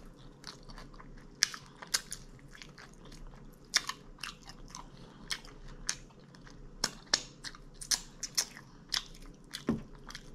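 A person chewing crispy food up close, with sharp, irregular crunches throughout.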